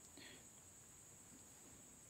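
Near silence: room tone with a faint steady high-pitched hiss, and one brief faint sound about a quarter second in.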